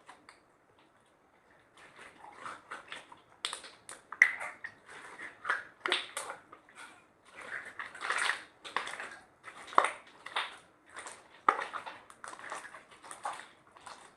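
Slime being squished and mixed: a quick, irregular run of sticky clicks and pops, starting about two seconds in, with one louder crack a little after four seconds.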